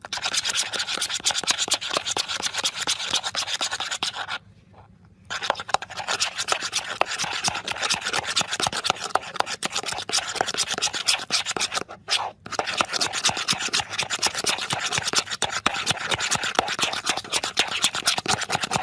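Body-wash and hand-gel slime being stirred in a bowl, a fast continuous scraping and rubbing, with a short pause about four seconds in and another, briefer one about twelve seconds in.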